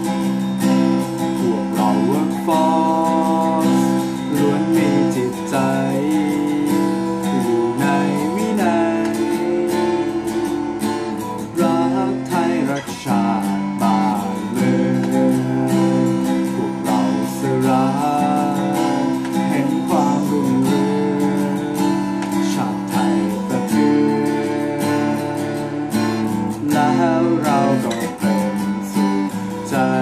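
Acoustic guitar strummed in chords, with a man singing along at times.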